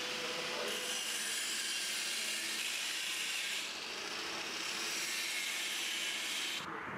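Electric angle grinder grinding the rubber of an old car tyre: a steady, gritty hiss that eases briefly about halfway through and stops abruptly near the end.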